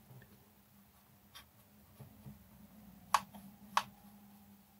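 A few light clicks and taps, with two sharper ones about a second apart near the end, as a paintbrush works over plastic model parts on a card. A faint steady hum sits underneath.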